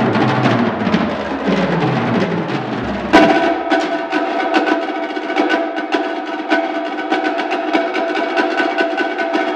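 Percussion duet on a shared set of drums: two players strike fast, dense rhythms with shifting drum pitches. About three seconds in a loud accent lands, and a ringing tone then holds under the continued rapid strokes.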